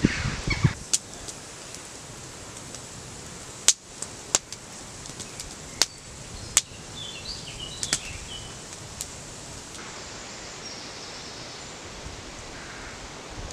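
Open wood campfire crackling, with scattered sharp pops of burning wood over a steady outdoor hiss.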